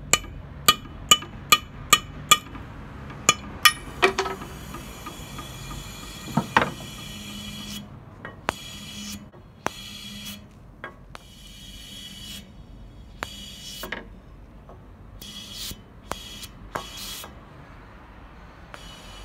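A hammer taps a screw through the rubber anode-cap seal of a CRT picture tube, about nine sharp metallic taps in the first four seconds. Then air hisses into the evacuated glass tube in stretches that start and stop, releasing the vacuum.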